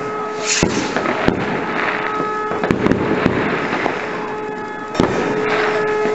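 Fireworks going off: sharp bangs every second or two over continuous crackling, with a steady tone running underneath.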